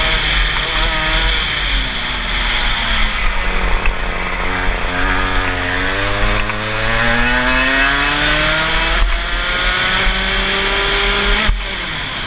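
Rotax 125cc two-stroke kart engine heard onboard at racing speed. The revs fall over the first few seconds as the kart slows for a corner, climb steadily for about six seconds as it accelerates down the straight, then drop abruptly near the end as the driver lifts off.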